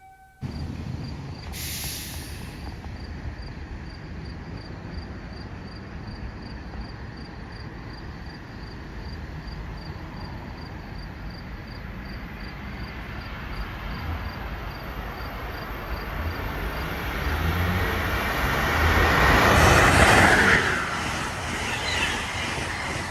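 Amtrak Keystone train led by a Siemens ACS-64 electric locomotive approaching on the main line, its rumble building to a loud rush of wheels and air about twenty seconds in as it passes, then easing off.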